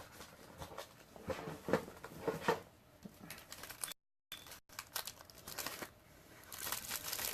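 Plastic packaging crinkling and rustling in faint, irregular bursts as small camera accessories are taken out of their wrapping. The sound cuts out completely for a moment about four seconds in.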